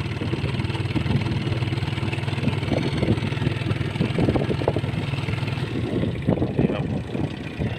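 A vehicle's engine running steadily as it is driven. Irregular knocks and rattles come in from about three seconds in.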